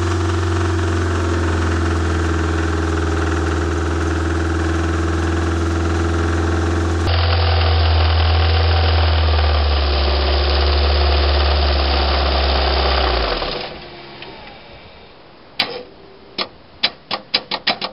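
1996 Mitsubishi Lancer petrol engine running with no oil and no sump, then dying away and stopping about 13 seconds in as it seizes. Near the end, a quick run of sharp clicks.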